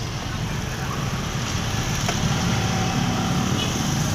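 Road traffic: a motor vehicle's engine running with a steady low hum that grows gradually louder.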